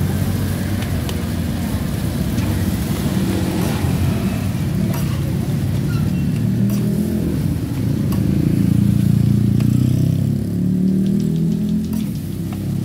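Motorcycle engines running and revving close by, at their loudest about eight to ten seconds in, with scattered sharp clicks of a metal spatula against a wok.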